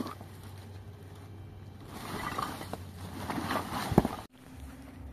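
Rustling and crinkling of a large plastic tarp being pulled and handled, with a sharp thump about four seconds in. The sound cuts off abruptly just after, giving way to a quieter background with a faint steady hum.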